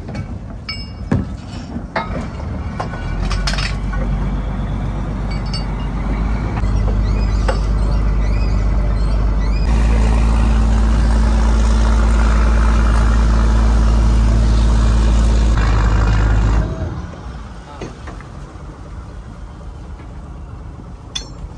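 Fishing trawler's engine running with a steady low hum that builds over the first ten seconds and then drops off abruptly about two-thirds of the way through. A few sharp knocks and clinks come near the start.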